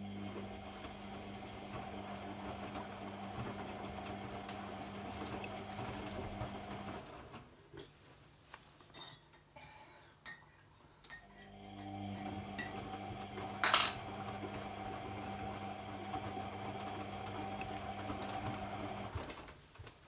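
AEG Lavamat 50435 front-loading washing machine in its main wash: the drum motor hums steadily as it turns the wet laundry for about seven seconds, stops for a few seconds with small clicks and clinks, then turns again and stops about a second before the end. One sharp clink comes about 14 seconds in.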